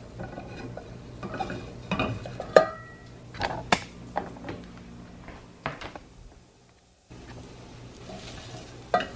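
A wooden spoon stirring onions and carrots in a stainless steel pot, with irregular knocks and scrapes against the pot's sides and bottom. They stop briefly about six seconds in, and a few quieter stirring sounds follow.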